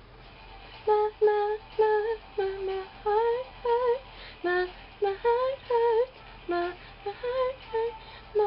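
A young singer's voice singing the opening melody of a pop song unaccompanied, in short separate notes that start about a second in, some with a wavering pitch.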